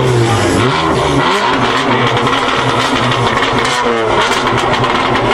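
Modified performance car engine revving, its pitch falling and then rising again, with sharp exhaust pops and bangs breaking through several times.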